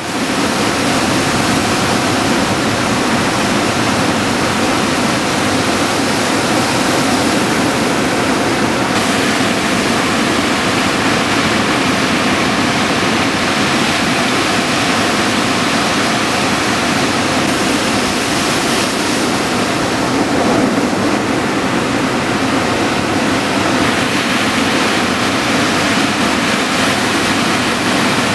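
Heavy breaking surf: a loud, steady rush of white water and waves, its hiss shifting slightly about 9 and 17 seconds in.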